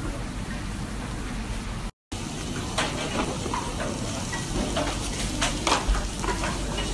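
Pumpkin and onion sizzling steadily in a stainless steel pot. After a brief dropout about two seconds in, the sizzle goes on with scattered clicks and taps as cooked chickpeas go into the pan and a spatula works against the metal.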